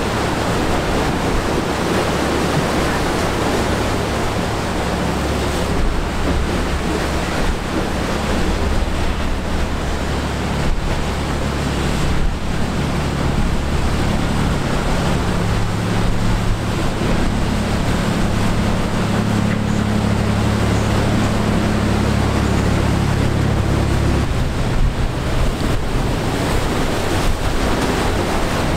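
Surf and wind buffeting the microphone, over the steady low drone of fishing boats' engines running through rough water. The engine hum stops near the end.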